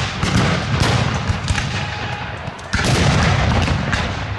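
Black-powder musket fire: a rapid, irregular crackle of many overlapping blank shots, with a louder blast a little under three seconds in.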